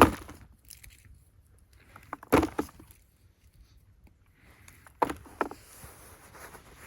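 Digging in soil packed with Jerusalem artichoke tubers: a loud thud right at the start, a quick cluster of thuds and scrapes about two and a half seconds in, and two more thuds about five seconds in.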